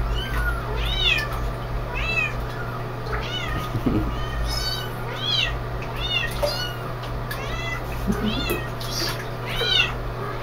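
Several kittens swimming in bath water, mewing over and over in short, high-pitched cries that rise and fall, often overlapping. A steady low hum runs underneath.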